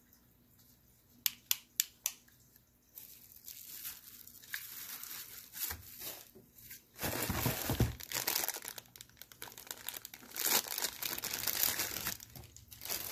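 Clear plastic packaging bag crinkling and rustling as it is handled, loudest in two stretches in the second half. A few sharp clicks come about a second in.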